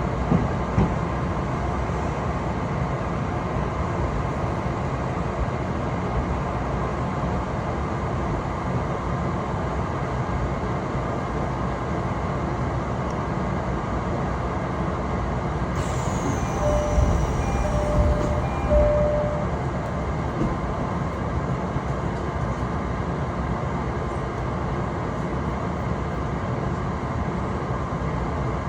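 Train running steadily on the rails, a continuous rumble. About two-thirds of the way through comes a brief high squeal that falls in pitch, with three short beeps and a few low knocks.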